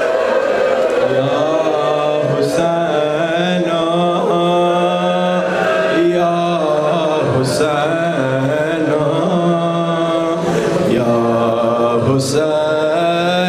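A man's voice chanting a slow mourning lament in long, held notes. The phrases break briefly about every five seconds.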